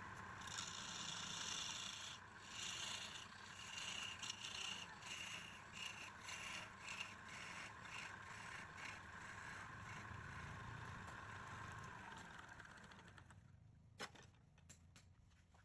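Wood lathe running with a steady hum while a tool or sandpaper scrapes and rubs against the spinning wood in uneven strokes. The hum falls and the sound stops about 13 seconds in, followed by a single click.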